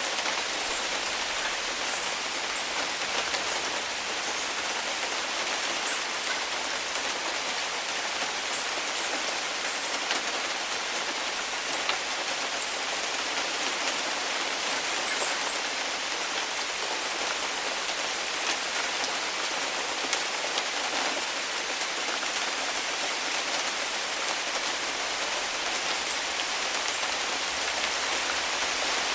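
Heavy rain falling steadily, a dense even hiss of drops with occasional sharper drop ticks.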